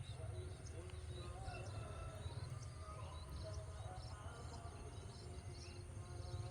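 Rural outdoor ambience: small birds chirping in quick, repeated short notes over a steady low rumble.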